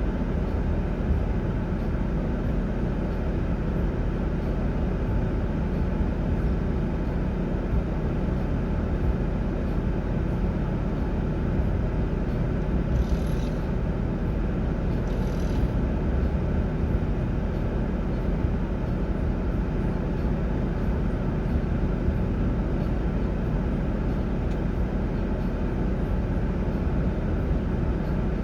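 Steady low vehicle rumble, even in level throughout, with two short high hisses a couple of seconds apart about halfway through.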